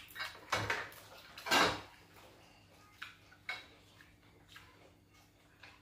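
Metal cutlery clinking and scraping against china plates and bowls, in a few scattered short clatters, the loudest about one and a half seconds in.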